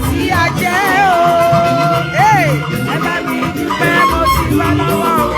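Live church music: a voice singing a wavering melody over a steady band accompaniment with a danceable beat.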